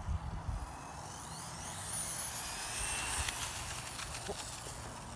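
Electric motor of a 3D-printed RC car whining as it speeds along the street, the high whine climbing steeply in pitch over about a second and a half and swelling, with a few sharp ticks near its peak. Wind rumbles on the microphone throughout.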